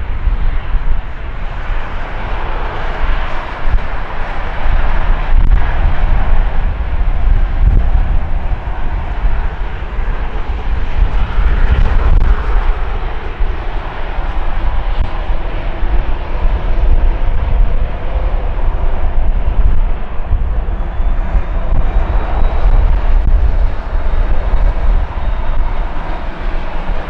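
Loud, steady jet engine noise with a heavy low rumble from a USAF Boeing C-40, a 737-700-based jet with twin CFM56 turbofans.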